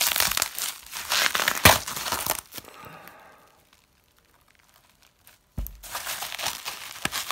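Bubble wrap and plastic packaging crinkling and rustling as a spray paint can is unwrapped by hand. The rustling stops for about two seconds in the middle. It then starts again with a sudden thump and more crinkling.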